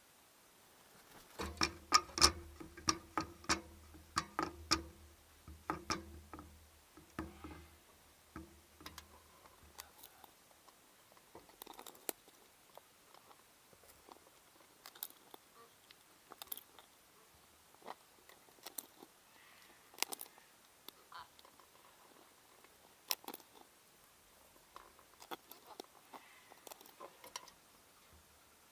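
Scarlet macaws cracking and chewing food with their beaks at a hanging feeder: irregular sharp crunches and clicks, quick and loud for the first several seconds, then sparser.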